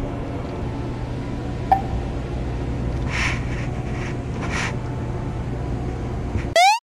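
A steady low motor hum over outdoor background noise, with a single click about two seconds in and two brief hissy gusts. Near the end comes a short, loud, rising electronic sweep, and then the sound cuts off suddenly.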